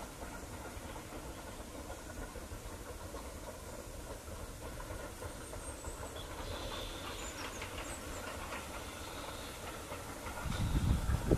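A steam locomotive working in the distance: its exhaust and a steam hiss grow audible about six seconds in, and a louder low rumble comes in near the end as it draws closer.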